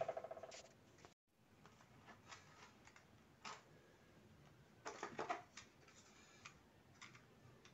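Faint, scattered clicks and knocks of a wall clock's case being handled and turned over on a table, with quiet room tone between.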